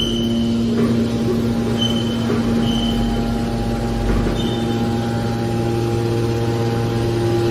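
Hydraulic waste metal baler's power unit running with a steady hum, with a deeper rumble swelling from about one to four seconds in and a few brief high squeaks.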